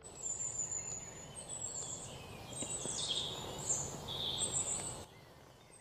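Outdoor ambience: a steady background hiss with thin, high bird chirps scattered through it, dropping away about five seconds in.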